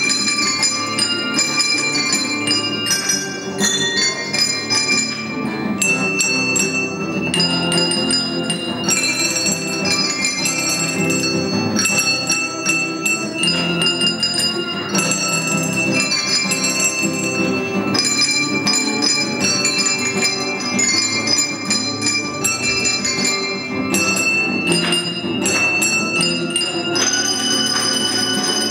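A handbell choir ringing a melody, many clear bell notes one after another, over acoustic guitar accompaniment.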